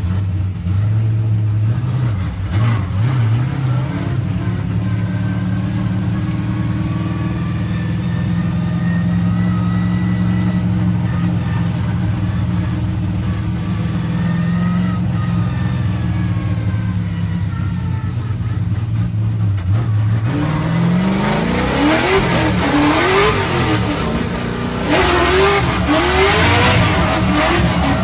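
Car engine running at a steady low speed with its pitch drifting slightly. From about twenty seconds in it is revved up and down several times in quick succession.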